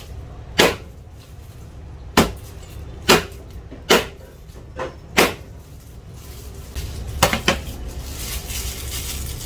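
Meat cleaver chopping through a cooked chicken onto a cutting board: about eight sharp chops at uneven gaps of roughly a second. Near the end it gives way to a crinkling rustle of plastic as the chopped pieces are gathered by a bag-covered hand.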